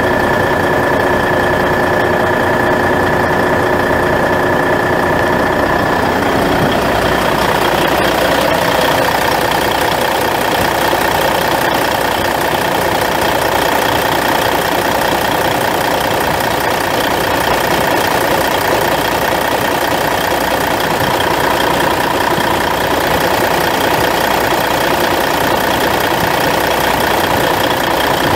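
Cummins N14 14-litre inline-six turbo diesel in a 1993 International 2574 semi truck, idling steadily. A steady high whine sits over it for the first six seconds or so, then stops.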